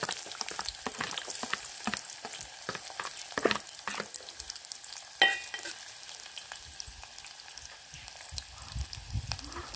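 Sliced red onions sizzling and crackling in hot oil in an aluminium pot, just after being tipped in. A sharp clink about five seconds in, and the sizzle eases off a little after it.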